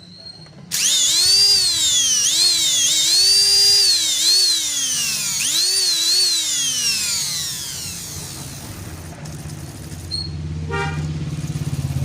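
Repaired juicer machine motor starting up under its own power and running with a high whine that surges up and drops in pitch several times, then winds down about 7 seconds in. It now starts by itself: the armature wire at the commutator hook had not had its insulation stripped, which had made it need a push to start. A lower steady hum follows near the end.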